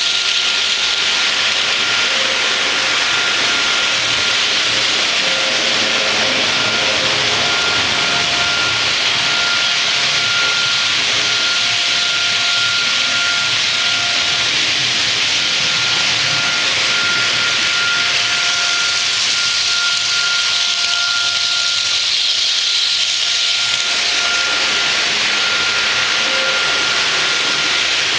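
Märklin model train running along the layout track: a steady rolling rush, with a faint whine that comes and goes.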